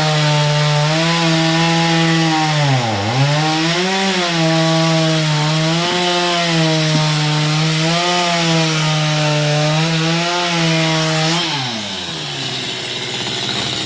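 Chainsaw cutting through mango wood at full throttle, its engine note sagging under load in the cut, sharply about three seconds in and briefly every couple of seconds after that. Near the end the pitch falls away as the throttle is released.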